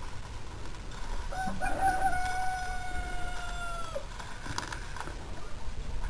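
A rooster crowing once in the background, one long held call that dips slightly at its end. A few faint clicks follow.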